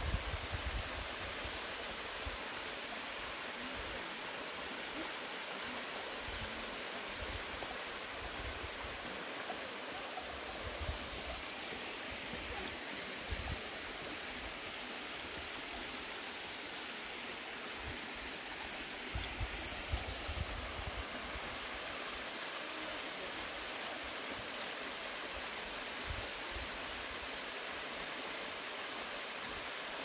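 Mountain stream water running and splashing down bare rock slabs into a pool, a steady rush. Brief gusts of wind buffet the microphone a few times, around 11, 13 and 19–20 seconds in.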